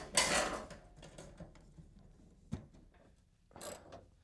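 A fuel pump and pickup assembly clattering and clicking as it is slid into the opening of a fuel tank, loudest right at the start, with scattered small clicks, one sharp knock about two and a half seconds in and a brief scrape near the end.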